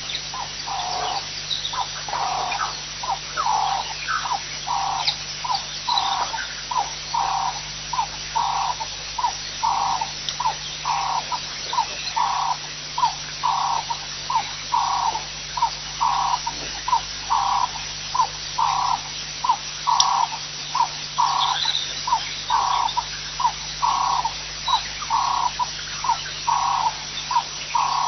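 Rhythmic animal calling: a short note and a longer note alternating about twice a second, on and on without a break, over a steady low hum.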